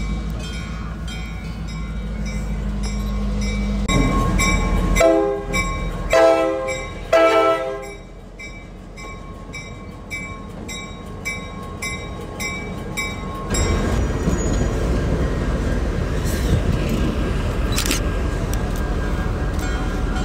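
Norfolk Southern diesel locomotives running past with engines rumbling and a bell ringing at a steady pace. The air horn sounds three blasts about five to seven and a half seconds in. Past the middle, engine and wheel noise grows louder as the units pass close by.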